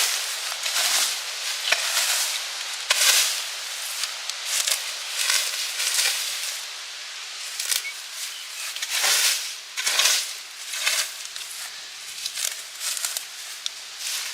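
Wood fire burning with irregular crackles and hissing bursts.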